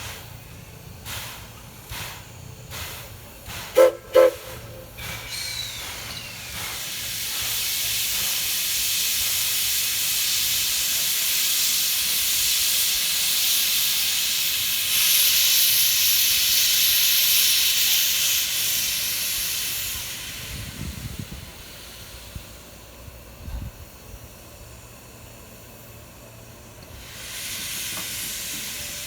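Thomas the Tank Engine steam locomotive giving two short toots on its steam whistle about four seconds in. Then comes a long, loud hiss of steam being let off, which dies away about two-thirds of the way through and starts again near the end.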